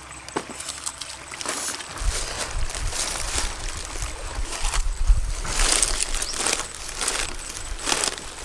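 Crackling and rustling as grilled frogs are torn apart by hand on a banana leaf, with dogs chewing close by and a stream trickling. There are many short sharp crackles, and a low rumble comes in about two seconds in.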